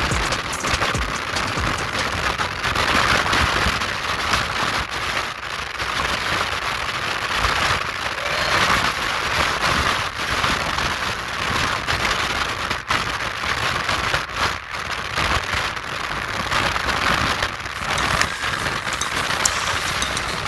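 Loud, steady rush of wind and road noise from a car travelling at highway speed, the wind beating on the microphone.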